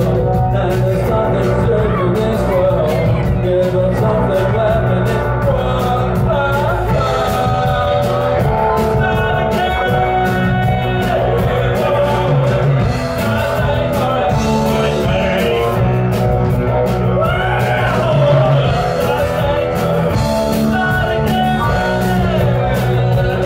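A live rock band playing: electric guitars, a drum kit and keyboard, with a singer over the top.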